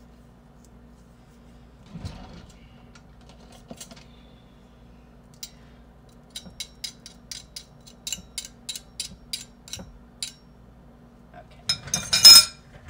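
Light metal-on-glass clicks, about three or four a second, as a metal garlic press and fingers work crushed garlic into a glass mixing bowl. Near the end comes a louder clatter of a fork against the glass bowl.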